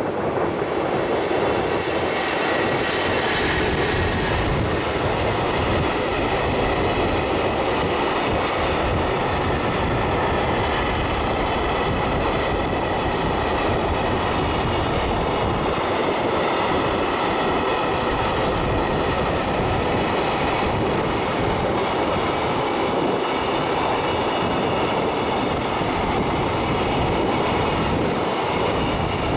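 Freight train hauled by an EF210 electric locomotive passing straight through a station without stopping: a long, steady rumble of steel wheels on rail as the wagons roll by, with some clickety-clack. It is slightly brighter and harsher about two to four seconds in.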